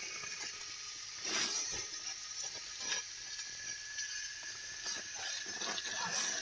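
Venison steak sizzling in a pan of butter and olive oil: a steady hiss full of small crackles, with a couple of louder pops.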